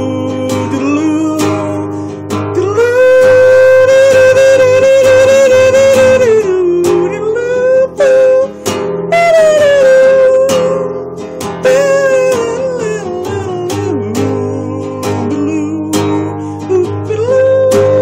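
Acoustic guitar strummed in a steady rhythm, with a man's wordless sung melody of long held notes sliding up and down in pitch over it.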